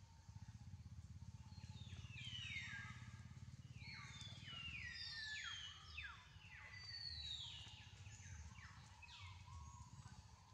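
A series of high, whistle-like animal calls, each falling steeply in pitch, repeated and overlapping for several seconds over a faint low rumble.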